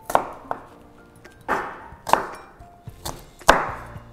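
Chef's knife chopping an onion on a bamboo cutting board: several separate crunching cuts, each ending in a knock on the board, the loudest about three and a half seconds in. Quiet background music plays underneath.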